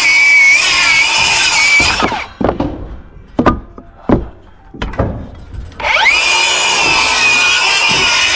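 Circular saw cutting wood with a steady whine, winding down about two seconds in. A few sharp knocks follow, then the saw spins up again about six seconds in and keeps cutting.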